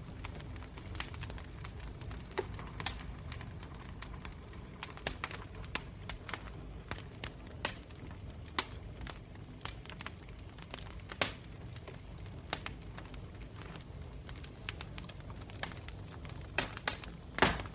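Fire crackling: irregular sharp pops and snaps over a steady low rumble, with the loudest pop near the end.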